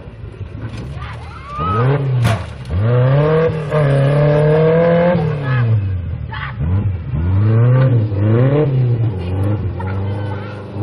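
Off-road 4x4 buggy engine revving hard. The revs climb about a second and a half in and hold high for a few seconds, then drop. After that the throttle is opened and eased off several more times.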